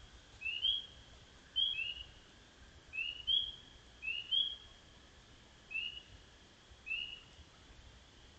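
Spring peepers calling at night: short rising peeps, about ten of them, some in quick pairs, from more than one frog.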